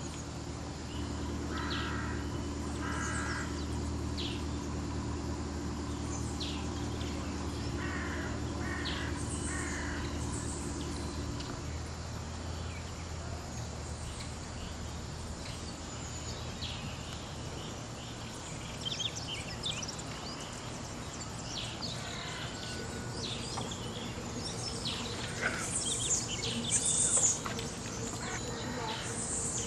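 A moored narrowboat's engine running as a steady low hum, dying away about twelve seconds in, with birds chirping and calling throughout, loudest near the end.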